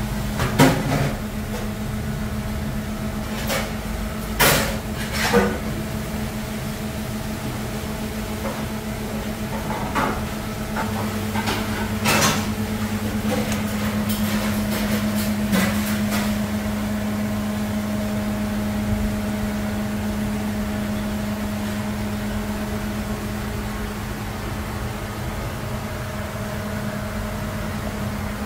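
A steady machine hum, with about a dozen short knocks and clinks, mostly in the first sixteen seconds, as pieces of meat and fat are handled over a steel tray and set into stone dizi pots.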